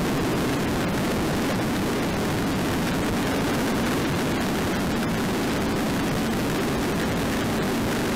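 Motorcycle riding at expressway speed: steady wind and road noise on the microphone of a handlebar-mounted dash camera, with a low engine drone underneath.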